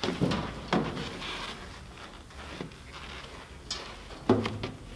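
Knocks and scuffs of a person climbing into the open cab of a vintage fire engine: shoes on the metal step plate and body bumping the seat and cab side. The loudest knocks come just after the start, under a second in, and a little past four seconds.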